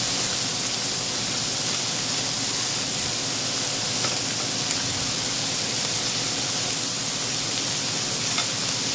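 Beef sizzling steadily on an electric grill pan, a constant hiss with a few faint pops.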